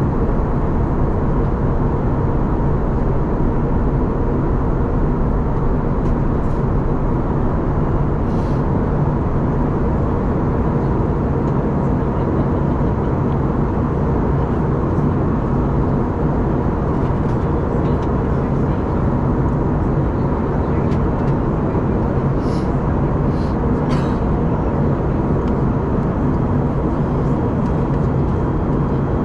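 Steady cabin drone of an Airbus A321neo in descent, heard from a window seat by the engine: a low, even roar of engine and airflow with a faint steady hum in it.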